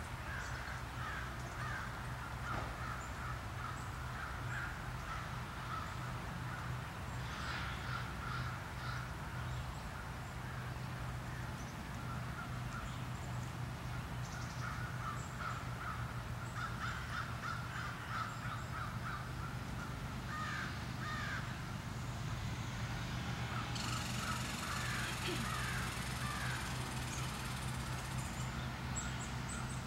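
Birds calling over and over in short calls, over a steady low hum.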